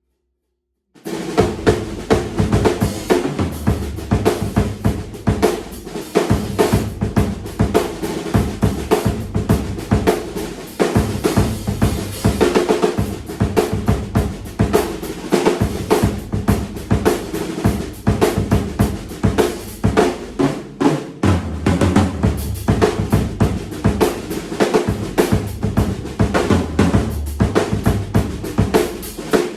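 1970s Ludwig stainless steel drum kit with a 22-inch bass drum, 13- and 16-inch toms and a 1960s 6.5x14 Ludwig Supraphonic snare, played continuously from about a second in, with steady bass drum and snare strokes.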